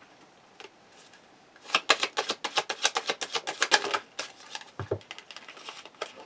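Tarot cards being handled in the hands: a quick run of crisp clicks, about nine a second, lasting a couple of seconds. Then come scattered lighter taps and one dull thump as cards go down on the cloth-covered table.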